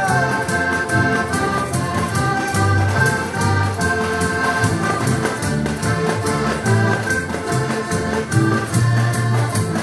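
Several heligonkas, Slovak diatonic button accordions, playing an instrumental passage of a folk song together, with held reedy chords, a melody on top and a bass line that changes note every second or so.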